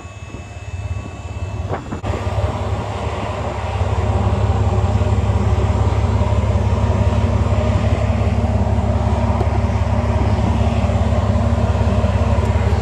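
Dump trailer's hydraulic pump starting up about two seconds in and running with a steady low hum that reaches full level a couple of seconds later, as it raises the loaded bed.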